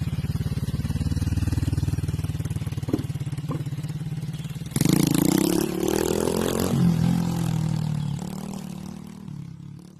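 Small motorcycle engine running steadily as the bike rides over a wooden plank bridge. About five seconds in it turns louder and noisier for a couple of seconds with its pitch rising, then it settles lower and fades as the bike moves away.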